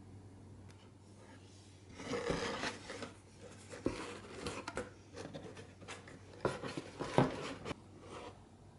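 Cardboard packaging being opened and handled: irregular rustling, rubbing and scraping of cardboard and packing material starting about two seconds in, with a few sharp knocks, the loudest late on.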